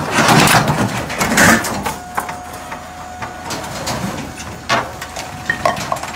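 Dumped waste (boards, a door panel and other debris) sliding and clattering off the raised bed of a tipper truck, loudest in the first second and a half, then settling with scattered knocks. A thin steady whine runs under it from about two seconds in.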